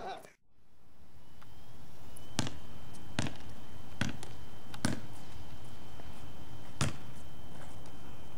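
A basketball bouncing on wet pavement: four bounces a little under a second apart starting about two seconds in, then one more after a pause.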